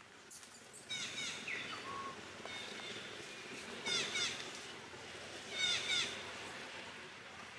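A bird singing: three quick runs of down-slurred chirps, the loudest about four and six seconds in, over a steady background hiss.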